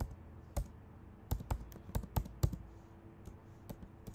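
Typing on a computer keyboard: separate keystrokes, coming quickest from about one to two and a half seconds in, then a few fainter taps near the end.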